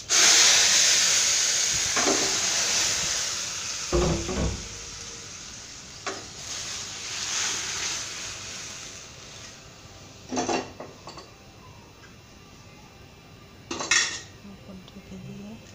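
Boiled masoor dal poured into a kadai of hot oil and fried whole spices for the tadka: a sudden loud sizzle that slowly dies down over several seconds and swells again briefly. A few metal clanks of the spoon and pots against the pan.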